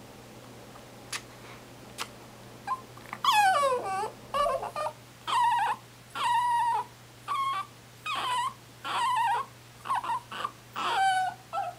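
Papillon dog squeaking: a string of high-pitched whimpers. The first, about three seconds in, is long and falls steeply in pitch, and about a dozen shorter, steadier squeaks follow.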